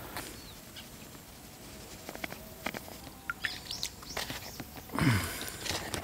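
Small clicks and rustling from handling plastic bait bowls and hand-mixing powdered gluten bait with a little water, with occasional bird chirps. A louder low sound comes about five seconds in.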